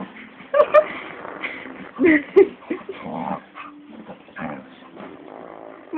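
A dog growling and yipping in short cries while play-attacking. The loudest cries come about half a second and about two seconds in.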